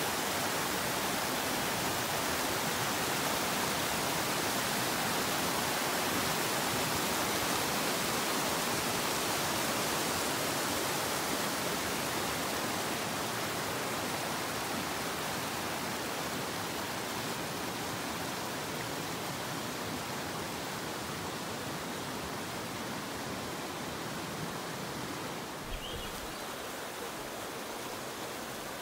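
Rushing water of the South Fork Skokomish River: a steady, even hiss that grows slightly quieter toward the end. A soft knock and a short high chirp come near the end.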